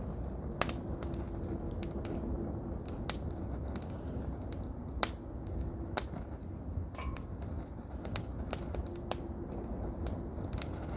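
Firewood burning, crackling with irregular sharp pops, over a steady low rumble of wind.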